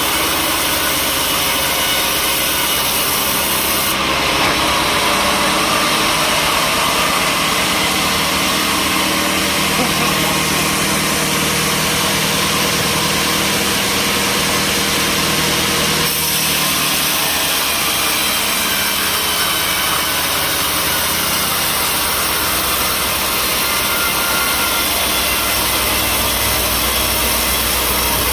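Sawmill saw running and cutting timber over a steady engine drone, the noise of the blade through the wood constant. The sound shifts abruptly twice, about four seconds in and again near the middle.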